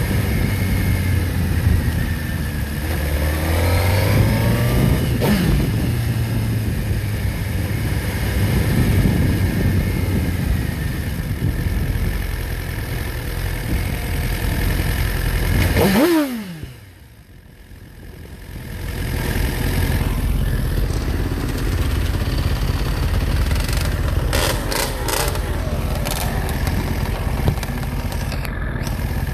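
Motorcycle engine running under way, its revs climbing a few seconds in. About halfway through the pitch falls steeply and the sound drops away for about two seconds before the engine noise returns.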